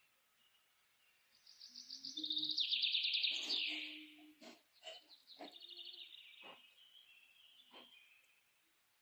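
A bird singing a fast, high trill that falls in pitch, followed by scattered chirps and several sharp clicks.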